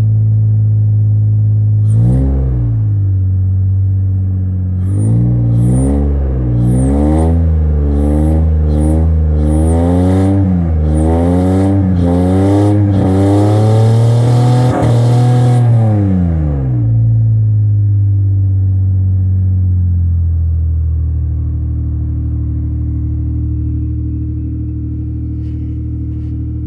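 Acura TL V6 engine idling, blipped once about two seconds in, then revved repeatedly in quick rises and falls for about ten seconds before settling back to a steady idle. It is misfiring, running on only three cylinders because of bad fuel injectors.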